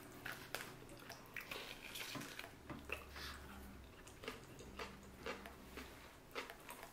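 Faint eating sounds of two people eating sushi with chopsticks: soft wet chewing and mouth sounds with scattered light clicks.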